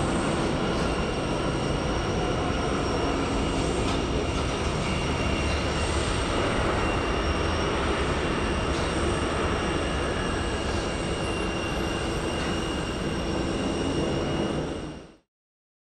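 Boeing 747 freighter's four jet engines running during landing and rollout: a steady rumble with a high whine over it, fading out quickly near the end.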